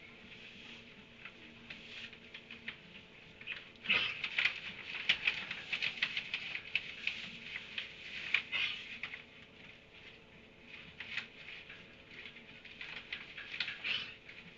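Small animals squabbling: irregular bursts of high, squeaky chatter and scuffling, busiest from about four seconds in and flaring again near the end.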